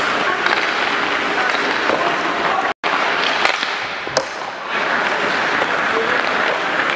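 Ice hockey rink noise during play: skate blades scraping the ice and sticks and pucks clacking, with a couple of sharp knocks in the middle. The sound cuts out for an instant a little under three seconds in.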